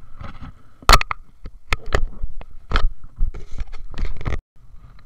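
Close handling noise on a body-worn action camera: a quick run of sharp scrapes, rustles and knocks, loud and uneven, that cuts off suddenly about four seconds in.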